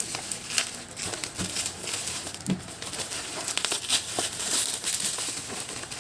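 Parcel packaging crinkling and rustling in irregular crackles as it is unwrapped by hand.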